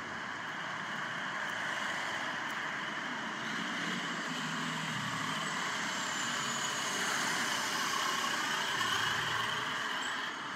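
City transit bus running past on a street: steady engine and tyre noise that builds over several seconds and falls away sharply near the end.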